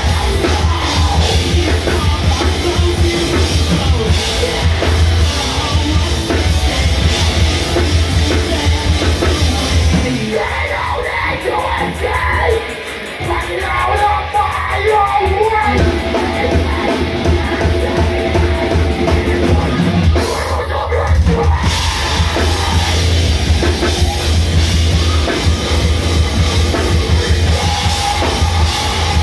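Live heavy rock band playing loud: distorted electric guitar, drum kit and shouted vocals. About ten seconds in, the bass and drums drop out for a few seconds, leaving a thinner, quieter passage, then the full band comes back in.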